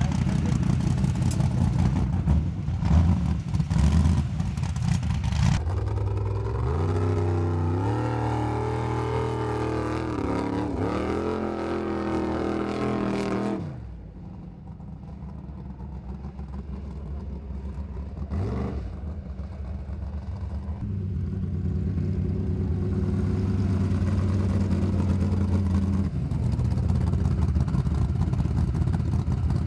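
Engine of a red modified Jeep off-road race car revving hard on a dirt and gravel course, its pitch climbing in steps through the gears. The engine then cuts off suddenly and gives way to a quieter, steadier note that grows louder again near the end.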